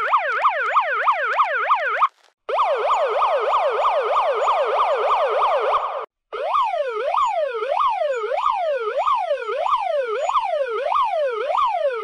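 Toy police car's electronic siren wailing up and down, edited into successive variations. It sweeps about four times a second, breaks off briefly twice, and then runs on at about half that speed.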